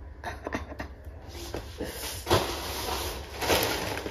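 Plastic shopping bag rustling and crinkling as it is handled, after a few light knocks in the first second.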